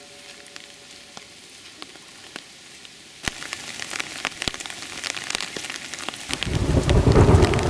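Rain pattering on leaves, heard as scattered drop clicks that suddenly grow dense about three seconds in. Near the end a loud low rumble joins them.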